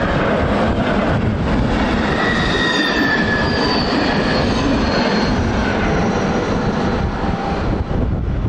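Class 460 'Tornádo' electric multiple unit passing close by, a loud steady rumble of wheels on the rails, with thin high squealing tones in the middle of the pass.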